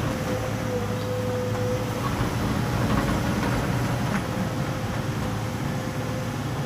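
Excavator's diesel engine running steadily under work, with a steady higher whine over the engine hum.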